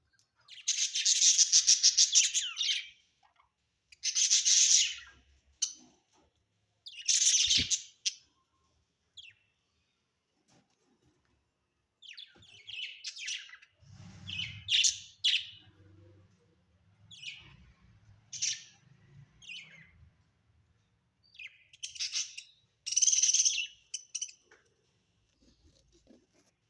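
Budgerigars chirping and chattering in bursts. The first few bursts are a second or two long with a fast warble; after them come many shorter, scattered chirps.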